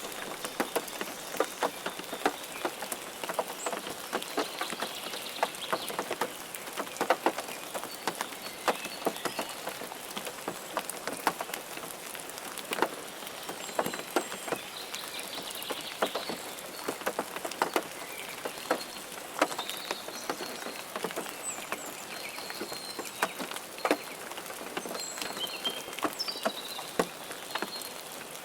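Steady rain falling on a surface: an even hiss thick with many distinct drop taps and splats, some louder than others. A few faint short high chirps come and go over it.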